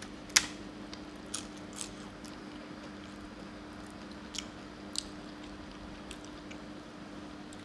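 Crisp crunches of papad being eaten, a loud crack about half a second in and a few smaller crackles later, over a steady low hum.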